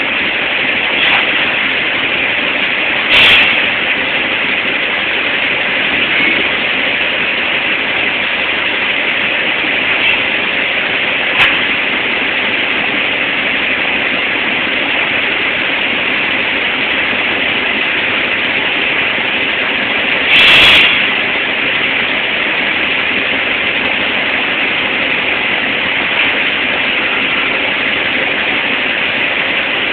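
Steady, loud industrial din of a steel mill slag yard heard from a locomotive cab, with two loud short knocks, one about three seconds in and one about twenty seconds in.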